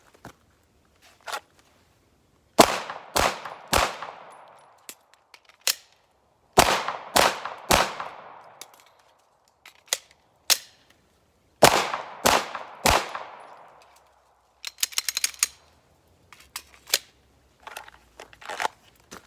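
Glock 17 Gen 5 9mm pistol firing nine shots in three quick strings of three, about half a second apart, with a pause of a few seconds between strings for a magazine reload. Lighter metallic handling clicks follow near the end.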